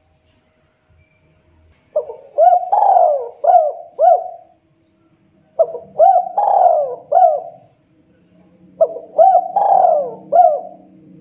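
Spotted dove cooing: three phrases of its rolling call, each four or five quick rising-and-falling coos, a second or so apart.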